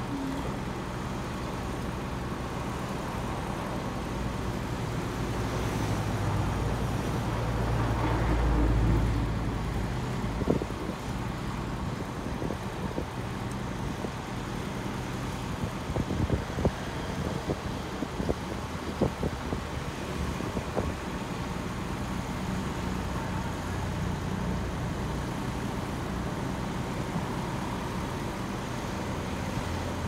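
Heavy diesel engine running steadily, louder for a few seconds about eight seconds in, with scattered sharp knocks in the middle stretch.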